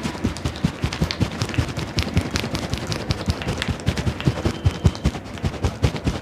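Rapid, irregular hand slaps and taps of a percussive massage, several strikes a second with no break.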